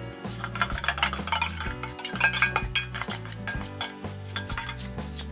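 Stainless steel mixing bowl clinking and scraping as the leftover marinade is emptied out of it, a quick run of sharp metallic clicks, over background music.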